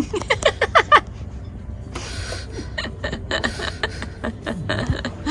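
A person laughing in a quick run of short bursts, followed by a string of light clicks and a brief rustle.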